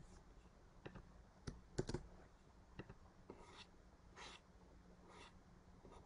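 Faint clicks of a computer mouse and keyboard, a few single clicks with a quick cluster near two seconds in, followed by a few soft rubbing sounds.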